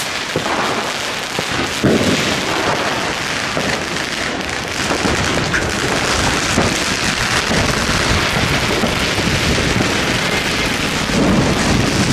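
Dense, continuous crackling of fireworks and firecrackers, many small bangs overlapping, with a sharper bang about two seconds in.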